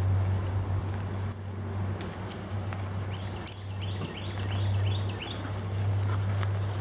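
A bird calls a quick run of short chirps, about three a second, from about three seconds in to about five seconds, over a steady low rumble and the scattered small sounds of people and dogs walking through grass.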